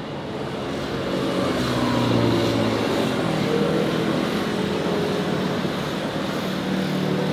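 Motor vehicles passing close by on a city street, their engine hum swelling to its loudest about two seconds in, with another vehicle passing near the end.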